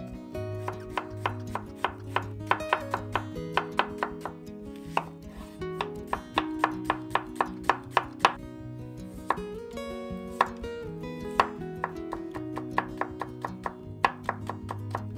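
Kitchen knife chopping on a cutting board in quick runs of strokes, several a second, with short pauses between runs, over light guitar background music.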